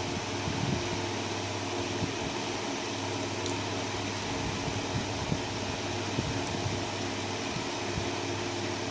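Steady mechanical hum and hiss, like a running fan, with no change through the stretch.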